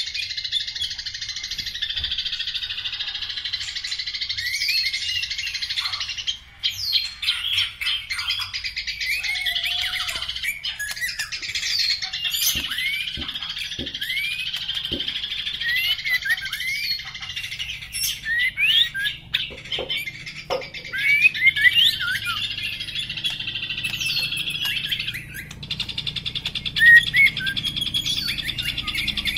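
A white-rumped shama of the black-legged type singing a varied run of sharp whistled notes that swoop up and down, over a constant high chatter. A few soft knocks come partway through.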